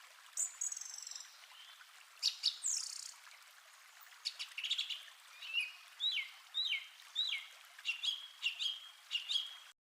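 Forest songbirds singing over a faint hiss of background noise. A high trill comes first, then a few sharp notes, then a run of about eight repeated whistled notes, each slurring downward, from about halfway through. The sound cuts off abruptly just before the end.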